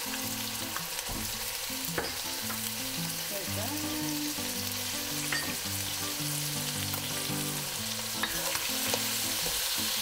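Chicken pieces with garlic and oyster sauce sizzling in a hot wok, stirred with a wooden spoon, with a few sharp taps of the spoon against the wok.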